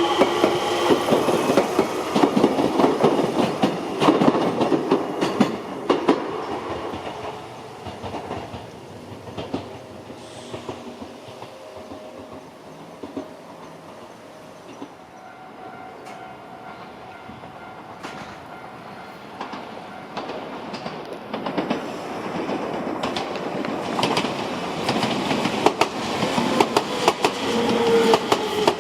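Enshu Railway 2000-series electric train running past, wheels clattering over the rail joints with a pitched motor whine. The sound fades away within the first several seconds, then a train's rumble and clatter build up again during the last few seconds, the whine falling in pitch near the end.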